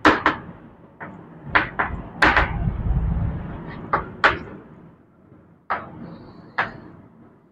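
Chalk writing on a blackboard: irregular sharp taps and short scrapes as the chalk strikes and drags across the board, about a dozen over several seconds.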